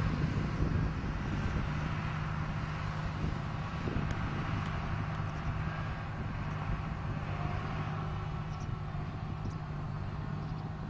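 Large farm tractor's diesel engine running steadily under load as it tows a loaded hydraulic earth scraper, with a constant low hum. It gets a little quieter as the rig drives away.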